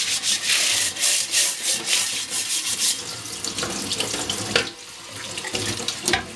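Dish brush scrubbing a Tefal OptiGrill non-stick grill plate under a running kitchen tap, with fast repeated scrubbing strokes for the first few seconds. Then tap water runs and pours off the plate into a stainless steel sink, with two sharp knocks later on.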